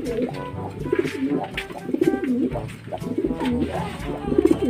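Domestic racing pigeons cooing in a cage, a string of low warbling coos one after another.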